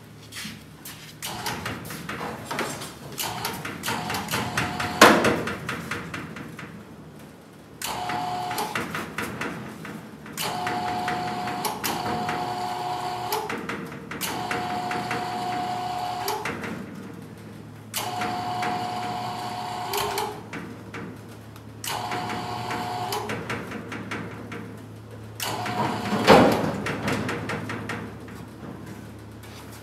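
Electric hoist motor whining in about seven short stop-start runs as it lowers a VW Beetle body onto its chassis, with a sharp metal clunk about five seconds in and another near the end as the body settles.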